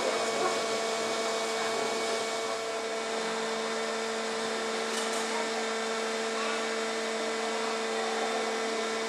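Steady machine hum inside a funicular railway car, a constant two-note drone over an even whirr, with no change in pitch or level.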